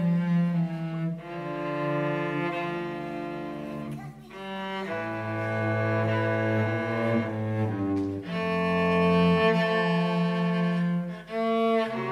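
Two cellos playing a duet in held, bowed notes, one line above the other, with short breaks between phrases about four seconds in and near the end.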